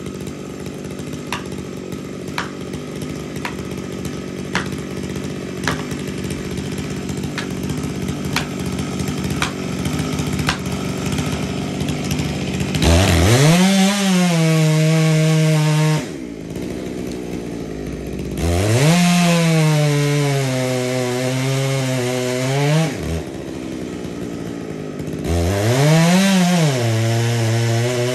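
Gas chainsaw cutting into the base of a tree trunk. It runs low and steady at first, with a faint tick about once a second. Then it is opened up to full throttle three times, about halfway through, near two-thirds and near the end, each time its pitch leaping up and then settling lower as it cuts.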